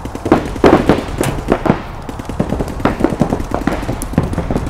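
Paintball markers firing during play: loud, irregular strings of sharp shots, several in quick succession at times, with short gaps between them.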